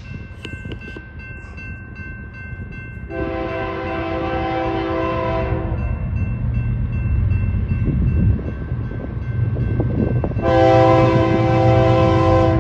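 Locomotive air horn sounding a chord of several notes in two long blasts: one of about two and a half seconds, then another starting near the end. A low train rumble underneath grows louder as the train approaches.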